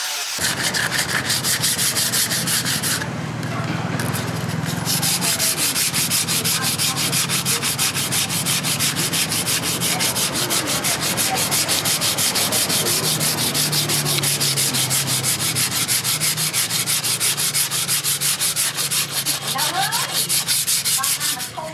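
Sandpaper rubbed by hand over a wooden sword handle in quick back-and-forth strokes, a steady rhythmic rasping with a short lull a few seconds in.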